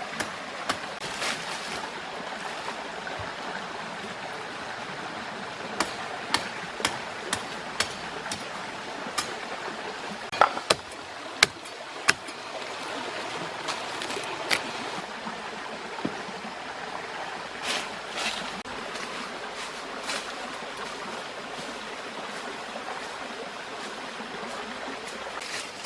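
Steady flowing water, with a scatter of sharp clicks and knocks through the middle.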